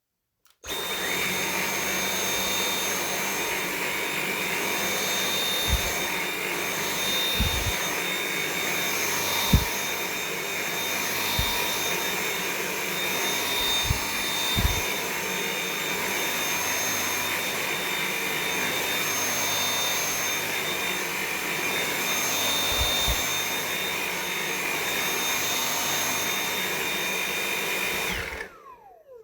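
Vacuum cleaner switched on, its motor running steadily with a high whine and a few short low thumps along the way. Near the end it is switched off and the motor winds down with a falling whine.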